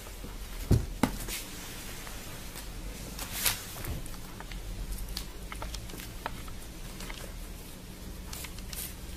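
A cat pawing and batting a small plastic bottle on carpet: a soft thump under a second in, a click just after, a short rustle near the middle and scattered faint taps.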